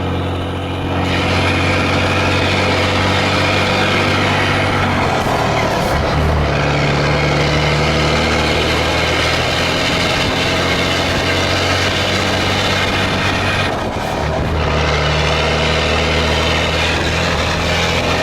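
Scania 113 truck's six-cylinder diesel engine running with a loud, deep rumble. Its note shifts briefly about five to six seconds in and dips for a moment near fourteen seconds.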